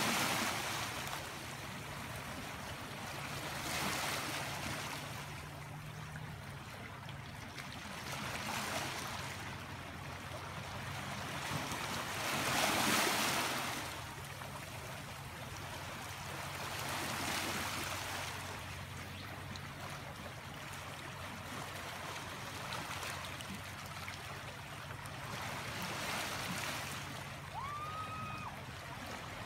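Small sea waves breaking and washing over a rocky shore, swelling and fading every four or five seconds, the biggest wash about halfway through.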